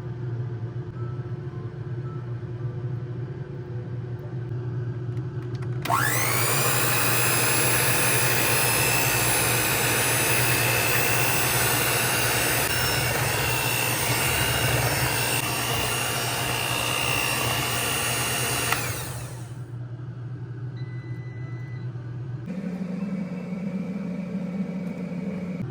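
A small electric motor spins up with a rising whine, runs steadily for about thirteen seconds and then cuts off, over a steady low hum.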